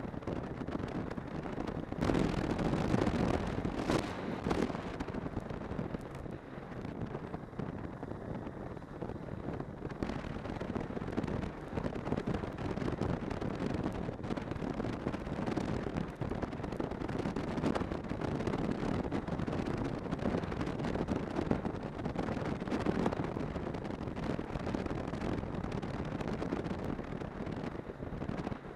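Snowmobile under way on a snow trail: the engine and track run steadily under heavy wind noise buffeting the microphone, which grows louder for a few seconds about two seconds in.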